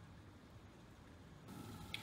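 Near silence: a faint low background hum, slightly louder in the last half second, with a small click near the end.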